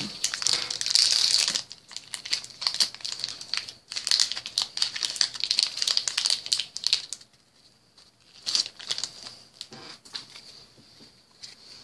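Crinkling of a trading-card booster pack wrapper being torn open and handled: a dense run of crackles for about seven seconds, then a few sparser rustles.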